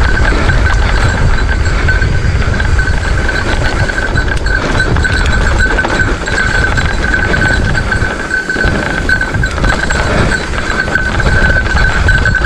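Mountain bike riding over a rough dirt trail: a continuous rumble of tyres, rattling over bumps and wind buffeting the microphone. A steady high-pitched tone runs throughout.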